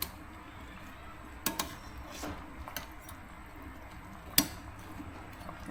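A few short, sharp clicks of kitchenware, the clearest about one and a half seconds in and again near the end, over a faint steady background.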